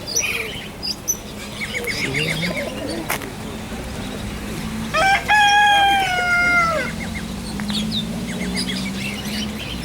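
A rooster crowing once, a single loud call of about two seconds starting about five seconds in, among the chirps and calls of other caged birds.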